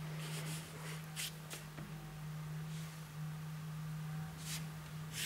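Quiet room tone with a steady low hum and a few faint, brief hissy rustles.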